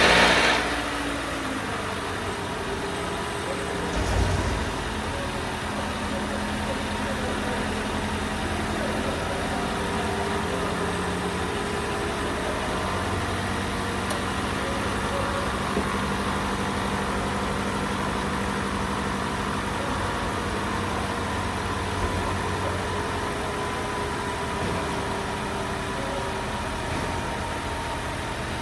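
Toyota Camry's 2AR-FE 2.5-litre four-cylinder engine idling just after being started. The revs drop from the start-up flare in the first couple of seconds, then it holds a steady idle.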